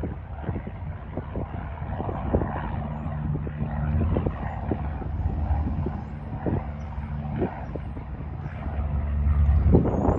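Propeller airplane's piston engine running, a steady low drone that grows louder near the end.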